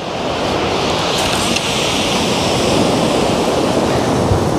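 Sea waves breaking and washing onto the shore: a steady rushing that swells over the first couple of seconds.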